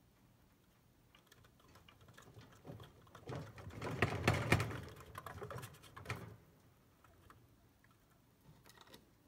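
Chinchilla gnawing on an apple wood chew: a fast run of small crunching clicks. It builds up about a second in, is loudest around four seconds, and stops after about six.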